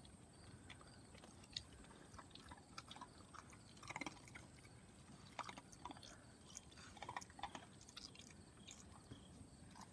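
Faint, irregular clicks and small crunches from two Great Pyrenees puppies working at a stainless-steel Chow Hound dog feeder.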